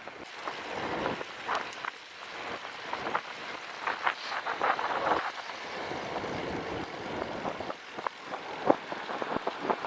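Wind noise on the microphone of a moving bicycle, with scattered clicks and knocks throughout.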